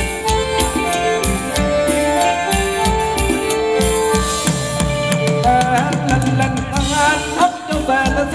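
Live Thai ramwong dance music from a band: a steady drum beat under held melody notes, with a wavering melody line coming in about halfway through.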